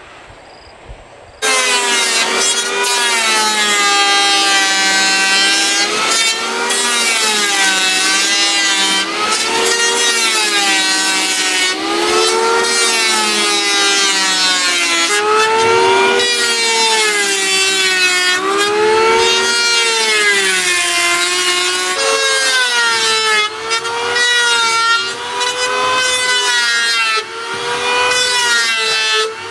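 Electric hand planer shaving a wooden plank: a loud motor whine that wavers up and down in pitch over a rough cutting hiss. It starts about a second and a half in and drops out briefly a few times near the end.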